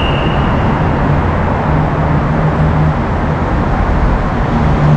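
Steady motor-vehicle and road-traffic noise, with engines running close by.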